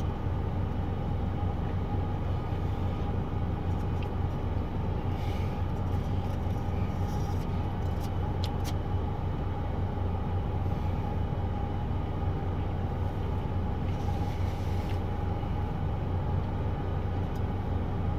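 Steady low hum of an idling car heard from inside the cabin, with a few faint clicks and rustles of handling food wrappings.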